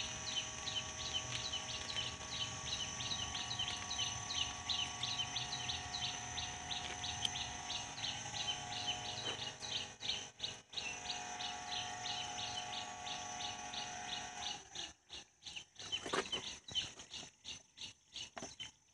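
A small bird chirping in a rapid, regular string, about three chirps a second, over a steady high tone; the chirping fades out about halfway through and the sound drops out in patches near the end.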